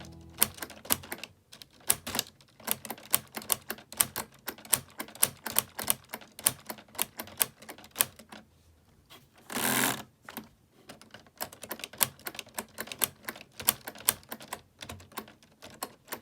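Keys of a LEGO typewriter model being typed, a steady run of sharp plastic clacks about four a second with brief pauses. About halfway through comes a single half-second rasping rush.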